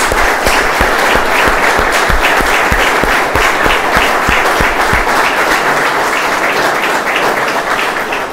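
Audience applauding: many people clapping steadily, easing off a little near the end.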